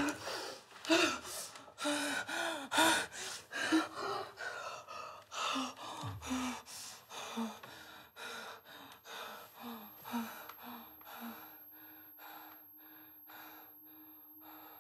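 A young woman panting hard in quick, ragged gasps, about two a second, most with a short moan in the voice. The gasps grow steadily fainter, and the moans stop about eleven seconds in. A steady low hum comes in near the end.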